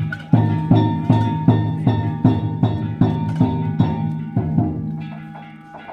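Danjiri narimono: taiko drum and metal gongs beaten in a steady rhythm, about two and a half strikes a second, each ringing on, easing off near the end.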